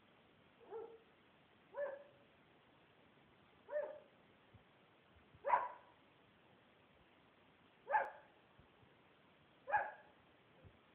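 A dog giving single short barks, six of them spaced one to two and a half seconds apart, demand-barking at the closet where his treats are kept.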